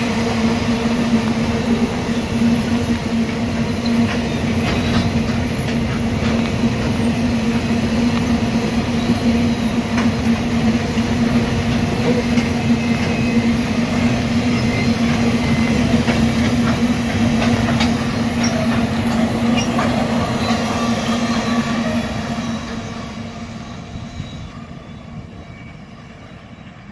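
Long freight train of open ore wagons rolling past on the rails: a steady rolling rumble with a constant drone and scattered wheel clicks. It fades from about 22 seconds in as the end of the train draws away.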